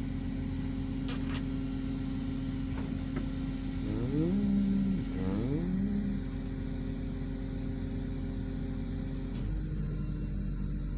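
Mobile crane's engine running steadily, revving up twice in quick succession about four and five and a half seconds in as the telescopic boom is worked, with a sharp click just after a second in.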